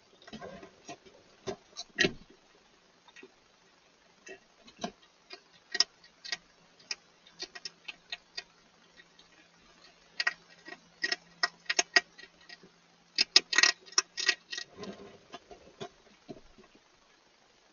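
Hedgehog eating dry food pellets from a shallow feed bowl: irregular sharp crunches and clicks, some in quick clusters.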